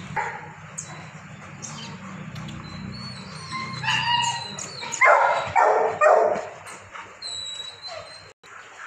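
Dog barking and yipping in short bursts, loudest about five to six seconds in.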